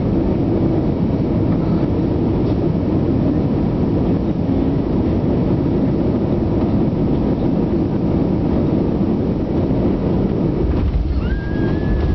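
Cabin noise inside an Airbus A320-200 on final approach: a steady rush of airflow and engine noise. About eleven seconds in, the wheels touch down with a faint knock, followed by a deeper rumble from rolling on the runway and a thin whine that rises and then holds.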